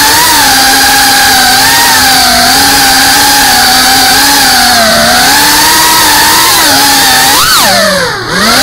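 FPV racing quadcopter's brushless motors whining loudly, the pitch wavering with the throttle. Near the end the pitch jumps up sharply, then drops steeply with a brief throttle cut before spooling back up.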